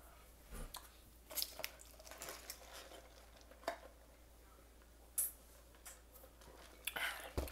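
Quiet eating sounds: a handful of short, soft clicks and rustles as a plastic fast-food drink cup is picked up and drunk from, with some chewing.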